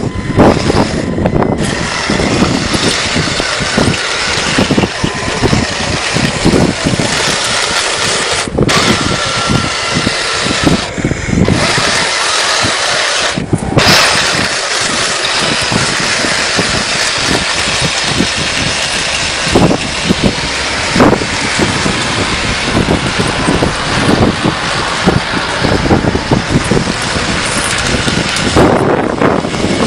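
1:16 scale RC tank driving, its electric drive motors running and its metal tracks clattering, with brief breaks about 8, 11 and 13 seconds in.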